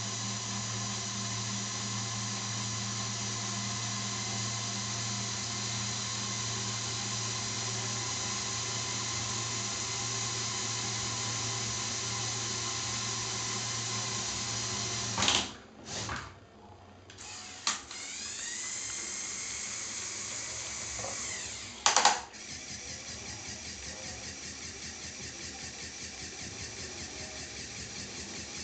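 Lego Technic electric motors and gear trains whirring steadily, stopping about halfway with a few sharp clicks. Another motor then starts with a rising whine. A loud clack follows about three-quarters through, then a steady pulsing whir.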